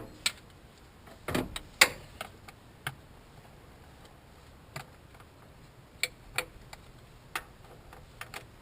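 Scattered sharp clicks and knocks of hand tools on the engine, irregularly spaced and loudest in the first two seconds, as the crankshaft is turned over by hand to line up the timing chain's bright link with the sprocket's timing mark.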